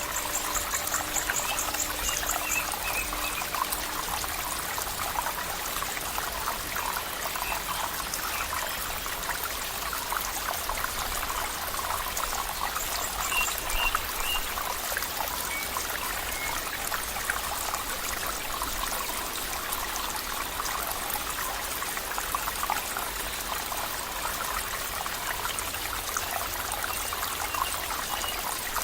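Gently flowing stream water, trickling and babbling steadily, with a few faint high chirps now and then.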